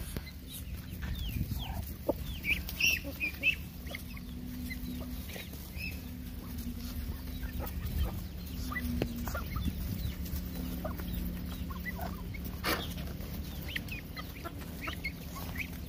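Chickens clucking around a feeding flock of poultry, with short high peeps of young birds, thickest a couple of seconds in, and a few sharp ticks.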